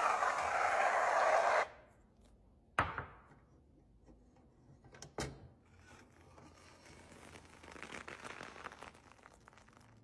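Stainless-steel lever press with a perforated hopper in use: a loud, steady rasping noise cuts off suddenly a little under two seconds in. A single sharp metallic thunk follows near three seconds, then two quick clicks around five seconds and faint crackling.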